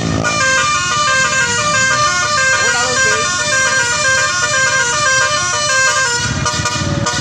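Indonesian 'telolet' multi-tone bus horn playing a fast, repeating tune of stepped notes, cutting off about six seconds in.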